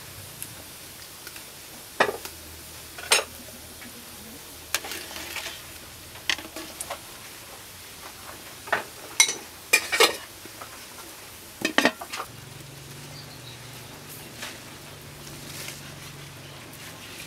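Scattered sharp clinks and knocks of a bowl and utensils against an aluminium cooking pot, over a steady low hiss from the simmering pot and wood fire. A low steady hum comes in about twelve seconds in.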